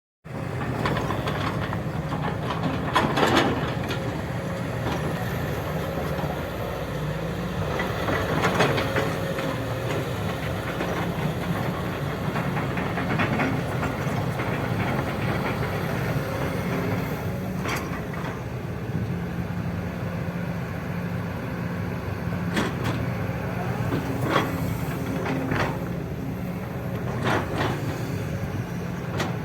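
Excavator diesel engine running steadily under work, with a sharp knock or clank every few seconds as it levels soil.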